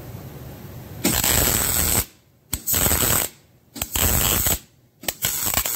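MIG welder stitch-welding a steel plate into a cut truck frame: four short bursts of arc, each about a second or less, starting about a second in, with brief pauses between.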